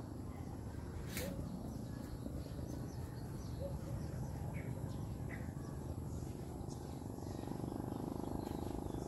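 A few short, rising bird chirps over a steady low rumbling noise, with one sharp click about a second in.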